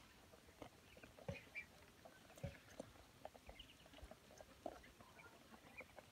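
A flock of ducklings feeding on the ground: faint, scattered pecking and tapping at food and litter, with a few soft, brief peeps.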